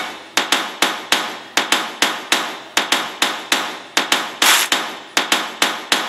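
Percussion-only passage of background music: sharp, evenly spaced strikes, about four a second, with no melody.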